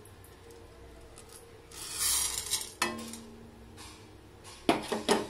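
Whole spices (coriander seeds, cumin, fennel and black peppercorns) poured into a dry nonstick pan: a rattling hiss of seeds for about a second, two seconds in, then a few sharp clinks against the pan near the end.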